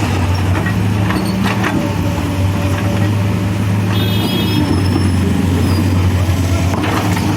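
CASE backhoe loader's diesel engine running steadily, with a brief high-pitched squeal about four seconds in.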